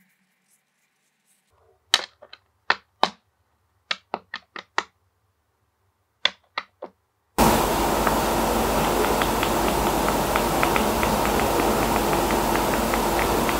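A stack of paper flipbook cards knocked against a wooden tabletop to square its edges: about a dozen sharp taps in three quick groups. About seven seconds in, a sudden loud steady rushing whir of the flipbook's pages flicking past the thumb takes over.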